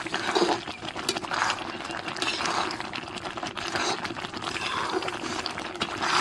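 Thick pea-and-onion gravy simmering in a pot over a wood fire, a steady bubbling with scattered small pops and clicks.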